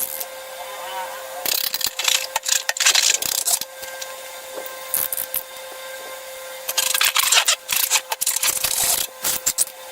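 Scratchy rubbing and crackling handling noise in two spells of a couple of seconds each, over a steady faint hum.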